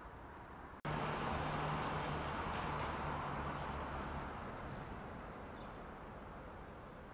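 Street traffic: a motor vehicle passing close, its noise starting suddenly about a second in with a low engine hum, then fading away over the following seconds.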